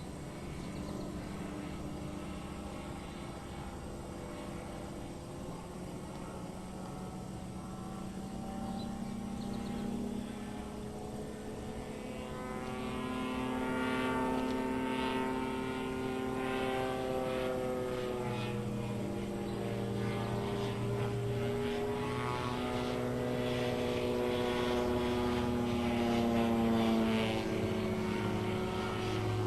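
Titan Tornado light airplane flying aerobatics overhead, its propeller engine droning and sweeping up and down in pitch as it manoeuvres. It grows louder about twelve seconds in.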